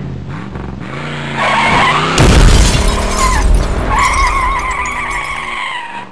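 Intro sound effects of a vehicle skidding, its tyres squealing with wavering pitch, over music. There is a loud burst about two seconds in, and the sound fades out near the end.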